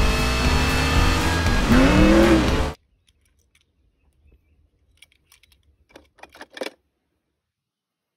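A car engine sound running steadily, then revving up and back down just before it cuts off abruptly under three seconds in. After that, a few faint clicks and rustles.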